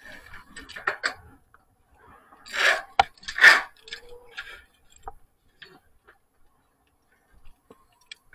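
Irregular light ticks, knocks and scrapes of a worker handling safety ropes and moving about on a corrugated metal roof, with two louder rustling swishes about two and a half and three and a half seconds in.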